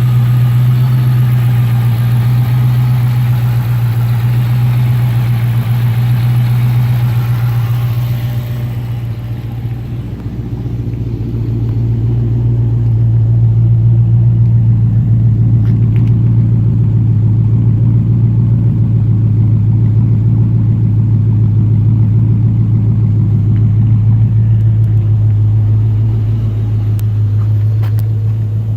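Dodge Magnum SRT8's 6.1-litre Hemi V8 idling steadily, with a misfire at idle noted by the owner. About a third of the way in the sound turns duller, losing its higher tones.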